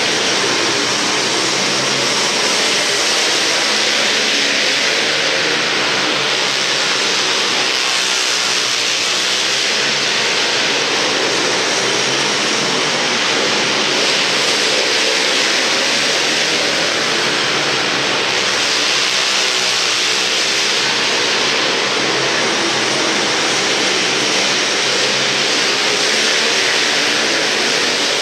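A pack of Yamaha Blaster and Raptor race quads running laps, their engines revving up and falling back as they go round the turns, over a constant loud hiss.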